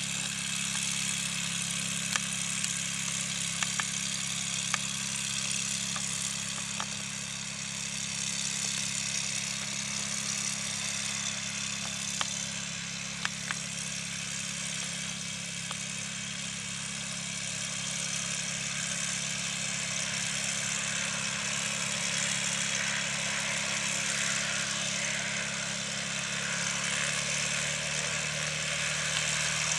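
Boeing 737-700 jet engines running steadily at idle after start: a steady hiss with a low hum underneath and a few faint clicks.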